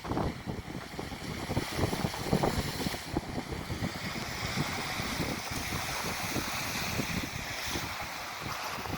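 Strong gusty wind buffeting the microphone with irregular low rumbles, over the steady rush of high waves in the harbour.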